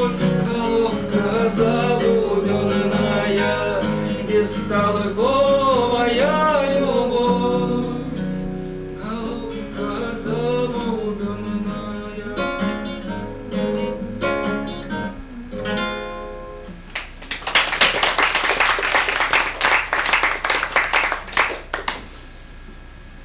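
A man singing with a nylon-string classical guitar; the voice stops about a third of the way in and the guitar plays a plucked closing passage alone. Near the end comes a few seconds of clapping, then quiet.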